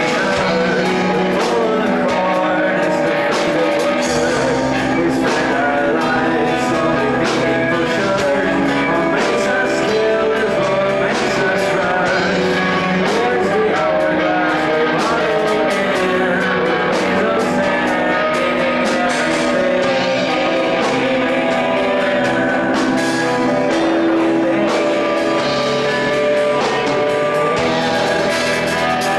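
A live rock band playing: guitars, bass and drums with singing over them, steady and loud throughout.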